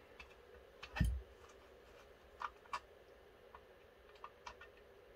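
A few faint, scattered metal clicks as a small screwdriver works a tiny locking screw out of a Browning Auto-5 shotgun's receiver, with one duller knock about a second in.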